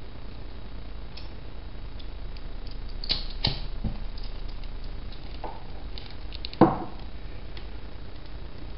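A lighter clicking twice as it is struck to light a spirit lamp's wick, then one louder knock about two-thirds through as the glass lamp is handled on the table, over a steady faint hiss.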